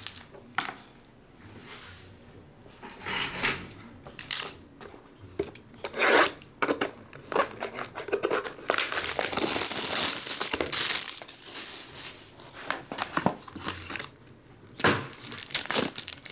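Plastic shrink wrap being slit with a utility knife and stripped off a sealed trading-card box, with a long stretch of crinkling about nine to eleven seconds in. Near the end, a silver plastic wrapper crinkles in the hands as it is pulled open. Short rustles and clicks are scattered throughout.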